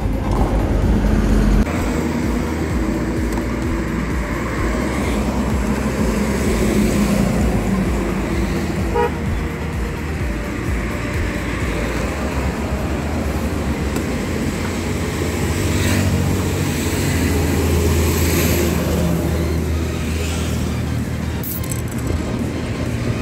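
Steady road traffic noise from vehicles passing on a highway, a low rumble that swells and fades as they go by.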